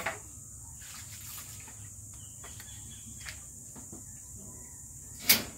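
Insects drone steadily at a high pitch. A single sharp knock comes near the end and is the loudest sound.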